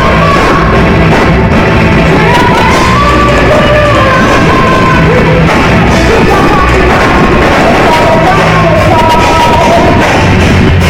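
A rock band playing live, with a lead singer's voice carrying the melody over the full band.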